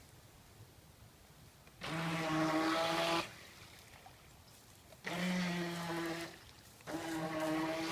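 RC boat's motor run in three short throttle bursts of about a second each, a steady buzzing pitch with water spray from the hull, dropping back to near quiet between bursts.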